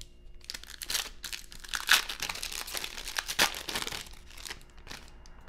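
Foil wrapper of a 2022 Bowman 1st Edition baseball card pack crinkling in the hands, with louder sharp crackles about two seconds and three and a half seconds in.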